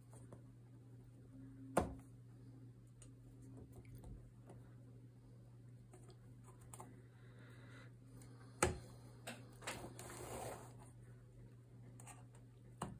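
A crochet hook and fingers working cotton loops off the pegs of a potholder weaving loom to bind off the edge: scattered light ticks, two sharp clicks about two seconds in and about nine seconds in, and a brief rustle of loops around ten seconds, over a steady low hum.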